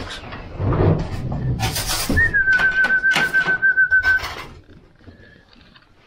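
A trilling whistle blown in one long warbling note of about two seconds, starting about two seconds in: a fancier's call to bring racing pigeons into the loft. Rattling and knocks come before and during it.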